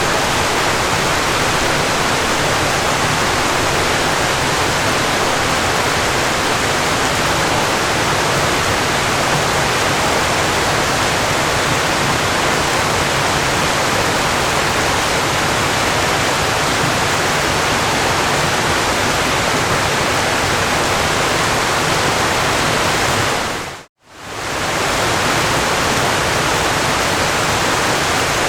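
Steady rushing of falling water, like a waterfall, even and unbroken. About four seconds before the end it fades out to silence for a moment and fades straight back in, as at the seam of a looped recording.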